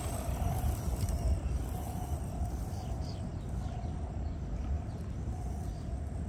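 Faint, wavering whine of a distant electric RC short-course truck's motor as it drives across dirt, over a steady low rumble of wind on the microphone.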